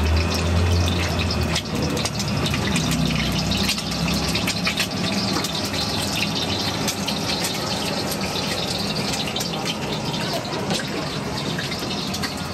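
An egg deep-frying in hot oil in a wok, a steady sizzle full of small crackling pops. A low hum stops about a second and a half in.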